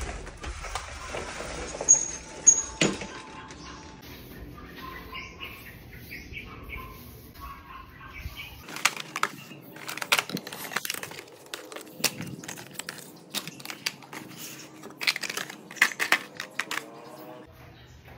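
A sliding glass door is pulled along its track, with outdoor noise coming through the opening and two sharp knocks in the first few seconds. Later, cardboard puzzle boxes are handled and stacked, a busy run of clicks, taps and rustles.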